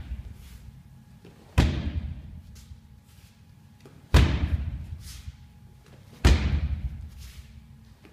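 Bare-foot toe-tip kicks (tsumasaki-geri) striking a padded wall target: three heavy thuds about two seconds apart, each with a short echo in the hall.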